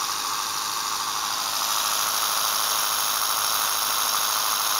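Small electric tire-inflator air compressor running steadily with a loud, even buzz while it pumps up toward its set pressure threshold.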